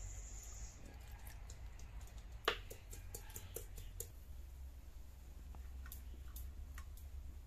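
Small clicks and taps of food and utensils being handled on a steel plate and a stone grinding slab: one sharp knock about two and a half seconds in, then a quick run of lighter clicks, and a few faint taps near the end, over a low steady rumble.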